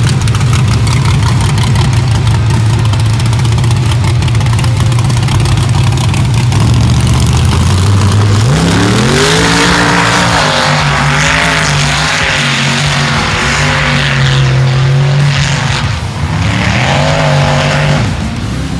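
Lifted mud-bog truck's engine running at steady revs, then revving up sharply about eight seconds in and held high with wavering pitch as the tires spin through the mud, with a rushing spray noise over it. Near the end the revs dip briefly and climb again.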